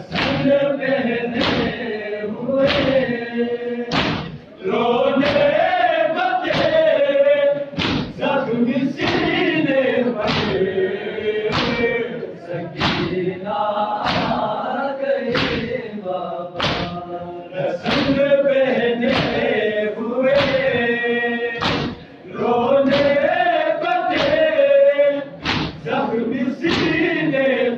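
Large group of men chanting a noha in unison while beating their chests together (matam), one sharp thud on each beat, about every three-quarters of a second. The chant breaks briefly twice between lines.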